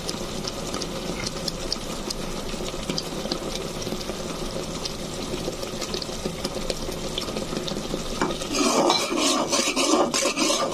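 Thick shrimp curry bubbling in a metal pot with many small pops. About eight seconds in, a metal spoon stirs it and scrapes against the pot, louder, in repeated strokes.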